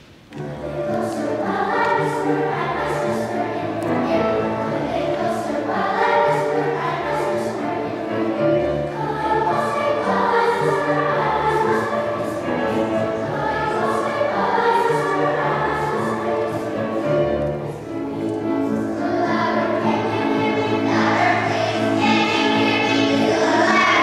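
Children's choir singing a choral piece in parts, over low sustained bass notes that change every few seconds.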